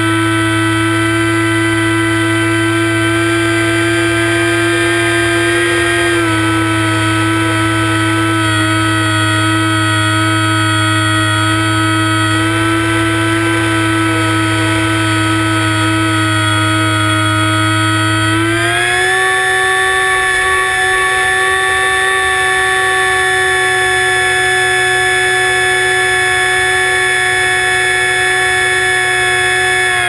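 ParkZone Icon A5 RC seaplane's electric motor and propeller heard from on board, a loud, steady whine. Its pitch drops slightly about six seconds in, rises a little past halfway as the throttle is pushed up, and falls again at the end.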